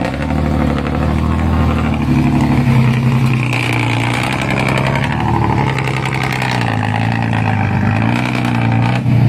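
Dump truck's diesel engine running under load as the truck pulls away, its note rising and falling a few times.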